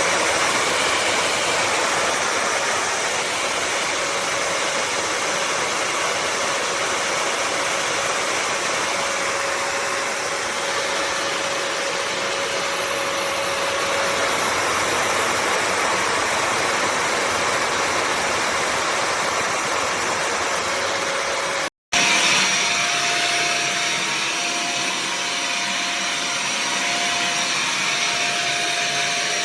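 Bissell CrossWave HydroSteam wet-dry vacuum running steadily, a motor drone with a faint whine. About three-quarters of the way through, the sound drops out for an instant and comes back with a slightly higher whine.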